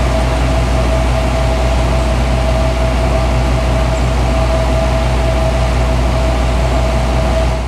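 Denyo DIS-200VP soundproofed diesel-driven portable air compressor running steadily, rated at 72 dB(A): a deep, even hum with a steady mid-pitched whine over it.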